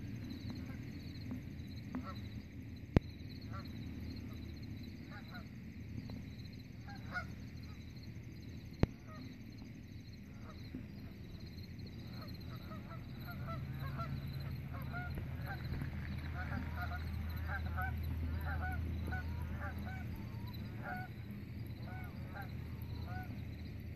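A flock of geese honking, scattered calls at first that grow denser and louder over the second half, with a low rumble underneath for several seconds past the middle. Two sharp clicks sound about 3 and 9 seconds in.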